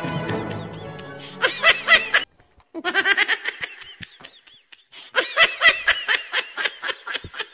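Laughter in three runs of quick, high-pitched bursts, with short pauses between them. A musical sound fades out over the first two seconds.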